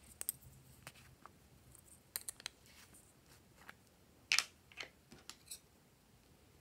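Small plastic containers being handled and opened: a scatter of light plastic clicks and taps, with one louder click a little past four seconds in.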